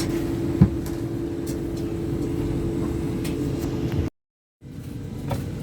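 Cabin ambience of a Class 730 electric multiple unit standing at the platform: a steady hum from the train's onboard equipment, with one sharp thump about half a second in. The sound breaks off for half a second about four seconds in, then resumes.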